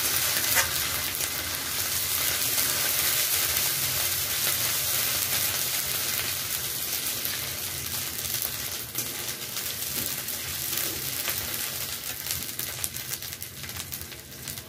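Fried onions and ginger-garlic paste sizzling in oil in a kadai, with a metal spatula scraping and clicking against the pan. The sizzling dies down toward the end.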